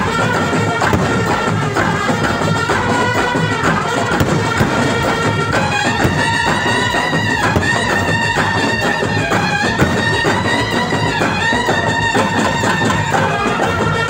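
Loud music from a light and sound show's soundtrack: a melody of long held notes that slide from one pitch to the next, over a busy, steady beat.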